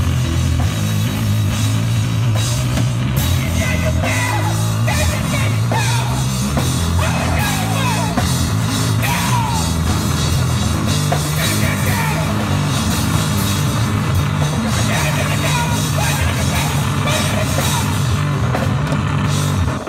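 Live heavy rock played on distorted electric guitar and a drum kit: a loud, continuous low riff with pitch bends over driving drums and cymbals.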